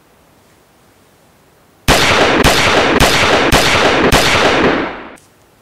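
Five loud pistol shots in quick succession, about half a second apart, each trailing a long echo so that they run together. They stop abruptly about five seconds in.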